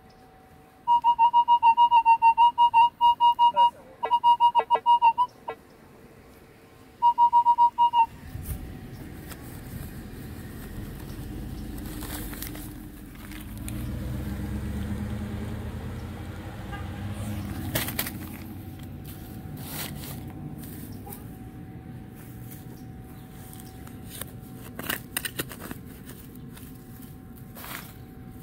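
Minelab E-TRAC metal detector giving a loud, steady high target tone in a string of repeated bursts as the coil sweeps over a buried metal target. It is followed by the low rumble of a vehicle swelling and fading, with a few scattered clicks.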